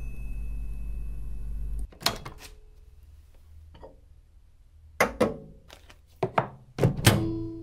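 A steady low hum that cuts off about two seconds in, then about nine sparse, uneven percussive knocks and thumps. The last strike leaves a short ringing tone as a percussion-led music interlude begins.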